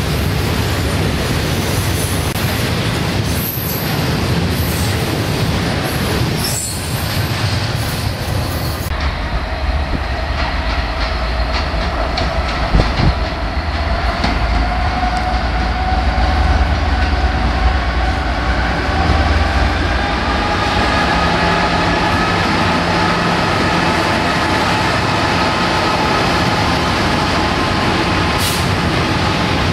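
Freight wagons rolling past on the track; then, after a cut, a Class 66 diesel locomotive approaching and passing close by. Its two-stroke V12 engine note rises steadily over about ten seconds.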